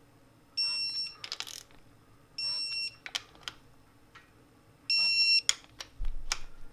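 Digital torque wrench beeping three times, each a steady half-second tone about two seconds apart, as the connecting-rod cap nuts reach the set torque of 22 ft-lb. Sharp clicks of the wrench's ratchet head sound between the beeps, and there is a short low thump near the end.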